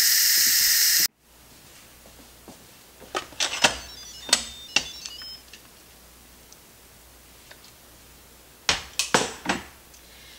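Instant Pot pressure-release valve venting steam with a loud, steady hiss as the remaining pressure is quick-released after a natural release; the hiss cuts off suddenly about a second in. Then come a few light clicks and knocks, in two short clusters around four and nine seconds in.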